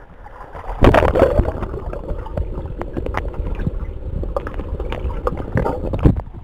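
Swimming-pool water heard through a camera microphone: a splash as it goes under about a second in, then muffled underwater sound with bubbling and clicks, and another splash as it breaks the surface near the end.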